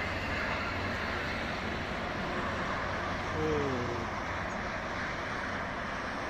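Steady road-traffic noise from vehicles on a motorway, with a brief falling tone about three and a half seconds in.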